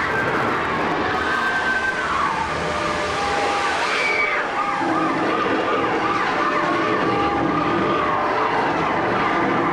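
Several emergency sirens wailing and wavering over a loud, dense din, as part of the disaster sound effects on a theme-park earthquake ride. The wailing thickens about halfway through.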